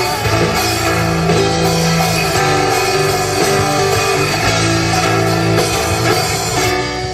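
Instrumental break in an Argentine folk song between sung verses, led by guitar over sustained bass notes.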